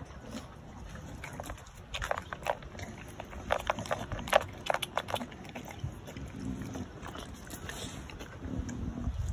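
Dog eating dry food from a feeding bowl, with a cluster of short, sharp crunches a couple of seconds in.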